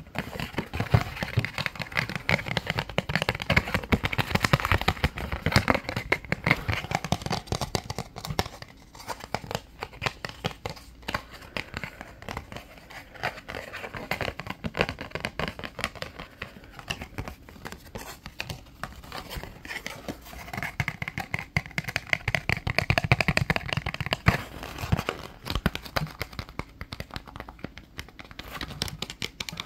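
A stiff piece of card handled close to the microphone: fingers tap and scratch rapidly and irregularly on its surface, and it crinkles as it flexes.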